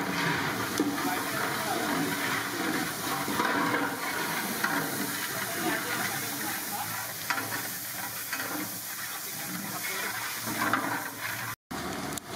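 Large metal pot of rice boiling hard over a wood fire, with a steady bubbling hiss, while a long metal ladle stirs it with occasional scrapes and knocks against the pot. The sound cuts out briefly near the end.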